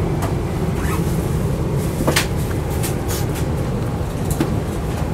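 Steady low rumble of an airliner cabin, with a few sharp clicks, the loudest about two seconds in.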